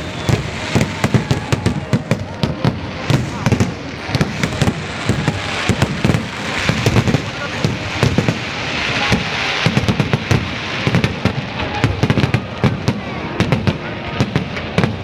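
Fireworks display going off: a dense, continuous run of bangs and crackles, several a second, with a hissing crackle swelling in the middle.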